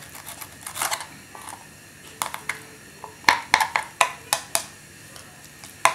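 Small kitchen knife tapping and scraping on a wooden cutting board while meat is cut loose from chicken wing bones: a string of sharp, irregular clicks, most of them between about two and five seconds in.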